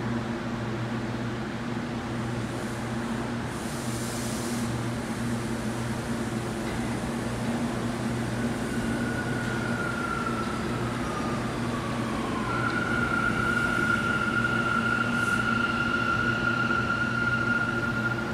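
New York City Subway R179 train pulling into the station and slowing: a rumble of wheels on rail that grows louder, with an electric motor whine that glides down in pitch about halfway through, then holds steady and high as the train nears the platform. A short hiss comes about four seconds in.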